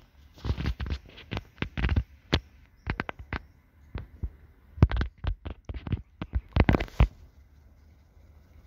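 An irregular series of sharp knocks and thumps, some close together, that stops about seven seconds in, leaving a faint steady hum.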